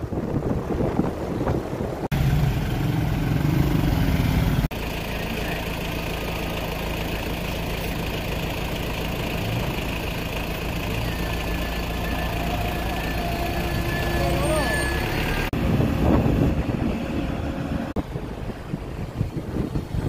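Motor vehicles running slowly along a road: a steady low engine hum, with voices faintly under it. The sound changes abruptly several times.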